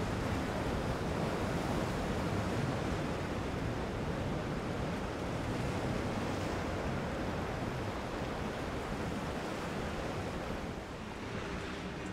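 Steady rush of wind on the microphone over breaking surf and choppy waves. Near the end a faint boat engine hum comes in.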